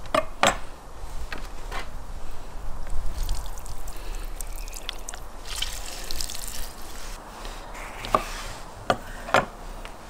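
Orange juice squeezed by hand, trickling and dripping into a plastic bowl of raw sturgeon steaks. A few sharp knocks, a knife on a wooden cutting board, come near the start and again near the end.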